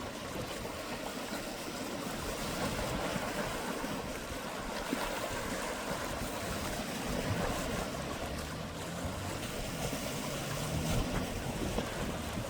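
Sea waves washing against the shore in a steady, even rush with gentle swells, and some wind on the microphone.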